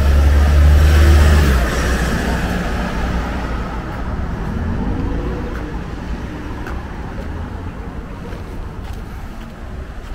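Road traffic: a vehicle passes close by with a low rumble and tyre noise, loudest in the first two seconds, then eases into steadier, quieter traffic noise. A fainter engine rises in pitch about four to five seconds in.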